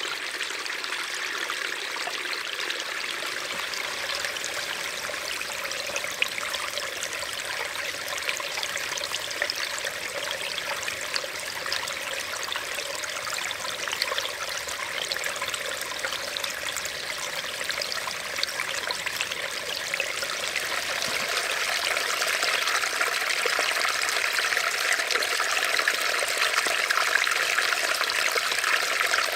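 Stream trickling steadily, a continuous splashing flow that grows a little louder in the last third.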